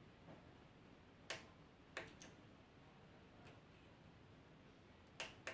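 Near silence: room tone broken by a few faint, sharp clicks, two of them close together near the end.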